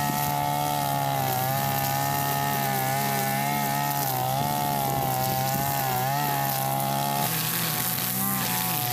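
Mitsubishi-engined backpack brush cutter running at high speed, its nylon trimmer line cutting grass; the engine pitch wavers a few times. Near the end the engine note shifts abruptly to a lower, rougher pitch.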